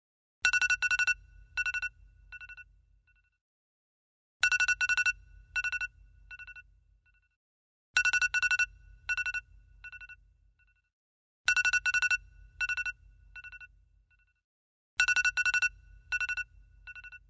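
iPhone ringtone playing on a loop: a short burst of rapid ringing pulses about every three and a half seconds, five times, each burst trailing off in fading echoes.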